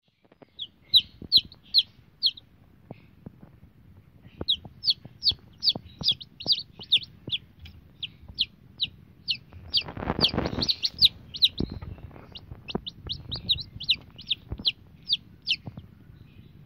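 Newly hatched chicks peeping: a run of short, high, falling peeps, about three a second, with a couple of short pauses, over faint taps and rustling on the bedding. A louder burst of rustling comes about ten seconds in.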